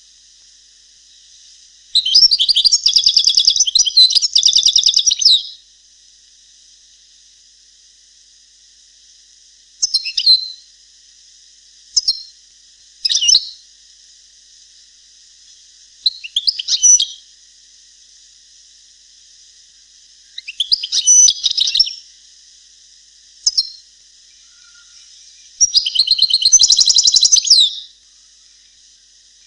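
European goldfinch song of the 'Palestinian' style used to tutor young birds. It comes in separate bursts: a long twittering phrase near the start, short notes scattered through the middle, and another long phrase near the end, over a steady high hiss.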